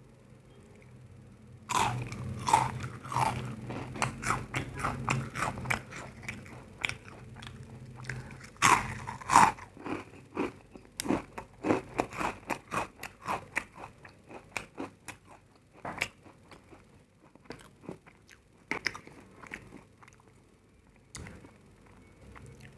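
Close-up eating sounds: a person biting and chewing crunchy food. The crisp crunches start about two seconds in, come thick and fast with the loudest bites around the middle, then thin out to slower, softer chews.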